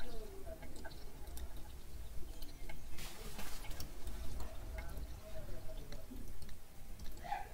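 Light clicking and ticking of a metal pick against an African land snail's shell, with its blue blood dripping into a plastic measuring jug.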